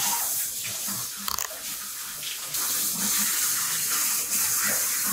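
Water running from a kitchen tap into the sink, with a short knock about a second in.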